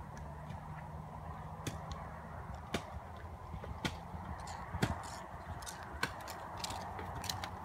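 A horse's hooves striking the sand footing of an outdoor arena: scattered, irregular hoofbeats that come more often and a little louder in the second half as the horse nears. A faint steady hum underneath fades out after about two seconds.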